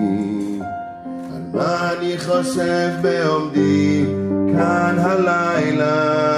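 A man singing a slow melody into a microphone over sustained instrumental accompaniment; the voice comes in about a second and a half in, after a brief drop in the backing.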